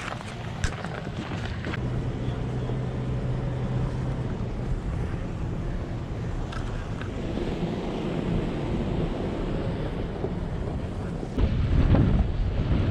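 Off-road vehicle's engine running as it drives over rough ground, with wind buffeting the microphone; the sound gets louder about eleven seconds in.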